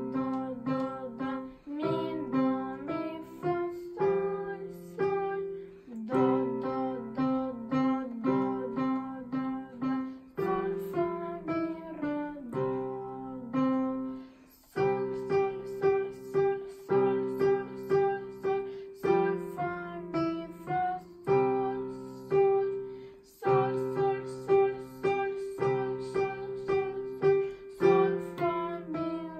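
A child playing a simple melody note by note on an electronic keyboard while singing the note names (solfège) along with the melody, with a short break about halfway through.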